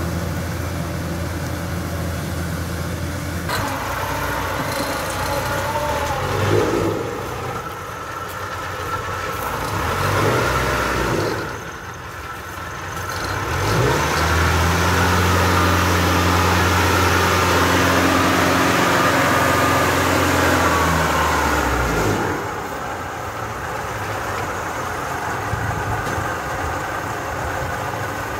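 Engines of harvest machinery, a Kubota DC-105X combine harvester and a small tracked rice-sack carrier, running, with the pitch rising and falling several times and a louder steady run for about eight seconds past the middle.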